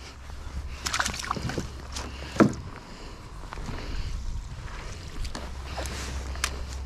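Gear being handled on a plastic fishing kayak: a few sharp knocks and clicks against the hull, the loudest about two and a half seconds in, with water sloshing as a landing net is dipped in the lake and a steady low rumble of wind on the microphone.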